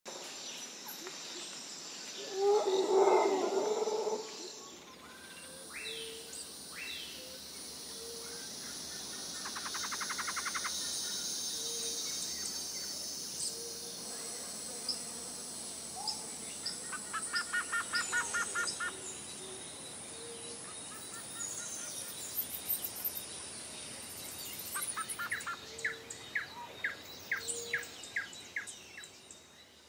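Bird chirps and rapid trills over a steady high insect-like hiss, a nature ambience that starts abruptly and fades out at the end. A louder, lower-pitched sound stands out for about a second and a half about three seconds in.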